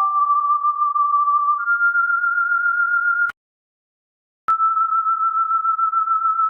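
Electronic pure tones near 1 kHz, holding one pitch for a second or two and then stepping up or down to another. About three seconds in the tone cuts off with a click, and about a second later it comes back with another click.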